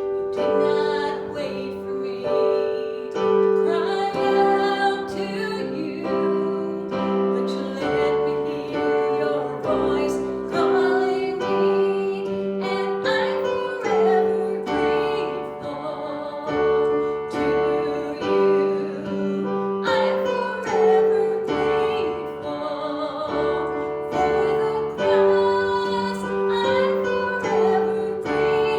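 A worship song: singing with piano accompaniment, held notes changing every second or two.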